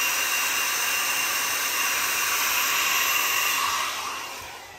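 Handheld hair dryer blowing steadily, a loud even rush of air, then dying away near the end.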